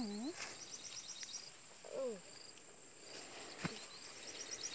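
Insects chirping in two short runs of rapid, high pulses, each about a second long, over a steady high-pitched whine. Brief falling voice sounds come at the start and about two seconds in, and a single knock about three and a half seconds in.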